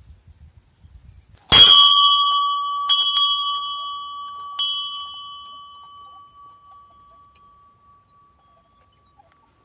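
Small hanging metal bell struck once hard about a second and a half in, then three lighter strikes. Its clear ring fades slowly over several seconds.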